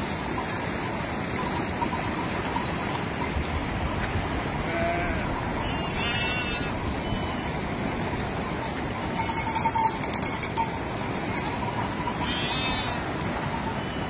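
Shallow glacial river rushing steadily as a flock of sheep wades through it, with sheep bleating a few times and a brief louder rattle about two-thirds of the way in.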